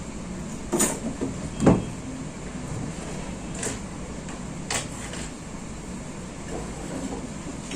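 Barber's hands slapping and patting a customer's head during an Indian head massage: a handful of sharp, irregularly spaced slaps, the loudest a little under two seconds in, over a steady background hum.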